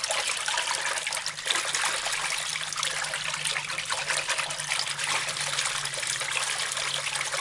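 Parboiled rice being washed by hand in a bowl of water: fingers swish and rub the grains, making steady sloshing and splashing with a fine grainy crackle.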